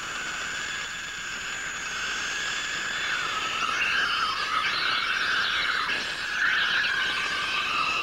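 Espresso machine's steam wand frothing milk in a jug: a steady hissing squeal whose pitch wavers, growing a little louder, then stopping abruptly at the end.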